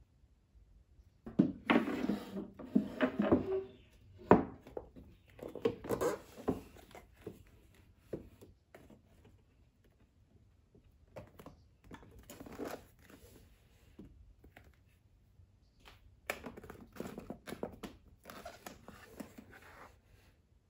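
Items being moved by hand on a shelf, among them a wooden shelf riser and cardboard manga box sets being set down and slid into place: scrapes, rustles and light knocks in several bursts. The loudest burst comes in the first few seconds, with a sharp knock near four seconds and another near eight.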